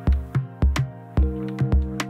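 Background music with a steady electronic drum beat over held chords; the chord changes about a second in.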